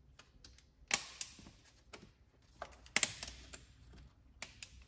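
Sharp metallic and plastic clicks and clacks of needle-nose pliers working a vacuum-line hose loose in an engine bay, with two louder clusters about a second and three seconds in, each followed by a brief rustle, and lighter clicks between.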